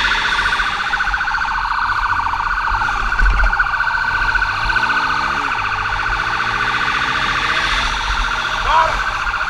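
Police motorcycle siren sounding continuously with a fast warble during a pursuit, over the low rumble of motorcycle engines and wind. Short rising-and-falling chirps come in near the end.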